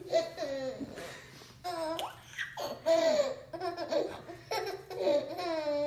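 High-pitched laughter in several bursts, with short breaks between them.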